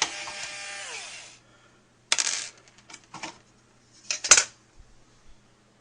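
Intro sound effect: a brief ringing tone that slides down in pitch after about a second, followed by a few bursts of bright metallic clinking and rattling.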